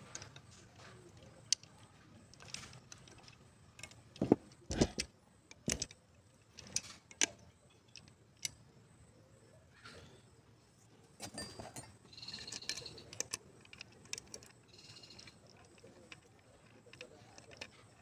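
Scattered metallic clicks, clinks and knocks of hand tools on a Bosch alternator as it is tightened up during reassembly, with a cluster of sharper knocks about four to six seconds in.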